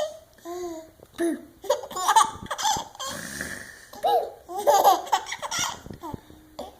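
Baby laughing in repeated short bursts of giggles and belly laughs.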